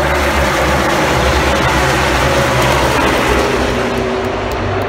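A pack of NASCAR Cup stock cars going by, their V8 engines running together in a loud, steady din.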